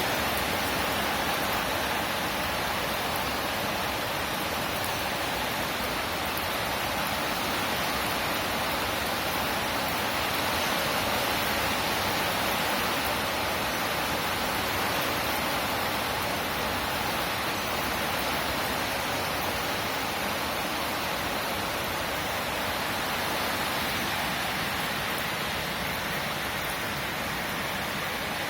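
Steady rain falling, an even, unbroken hiss with no separate drops or thunder standing out.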